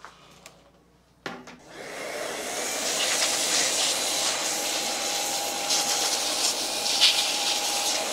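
Small cordless handheld vacuum switched on about a second in, spinning up and then running steadily with a high motor whine. Its nozzle is worked over a gaming laptop's motherboard and cooling fans to clear out dust.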